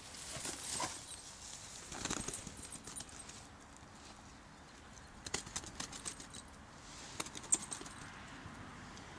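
Rustling as a border collie moves through tall grass, then a scatter of light clicks and taps from about five seconds in as it pushes a plastic ball across a gravel path.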